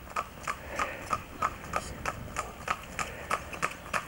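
New Forest Pony trotting on a tarmac lane, its hooves clip-clopping in an even rhythm of about three to four strikes a second.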